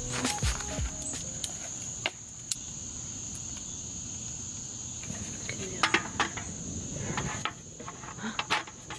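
Steady high chirring of insects, with scattered light clicks and knocks from the aluminium frame and slats of a folding camp table being put together. The insect sound drops out near the end.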